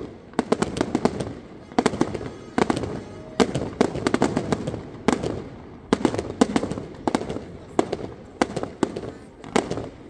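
Aerial fireworks display: shells bursting one after another, giving sharp bangs and rapid crackling that come in dense clusters every second or so.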